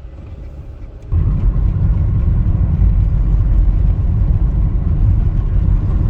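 Low, steady road noise of a moving car, which jumps much louder about a second in and stays loud.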